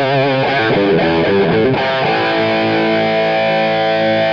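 Outro music led by distorted electric guitar: a few changing chords, then one held chord ringing on from about two seconds in.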